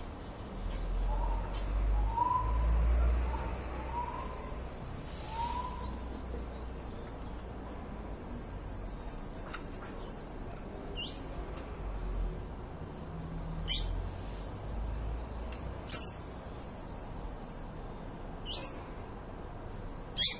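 Birds calling: a run of five short, low, upturned notes in the first few seconds, then loud, sharp, high chirps that sweep downward, repeated about every two seconds through the second half.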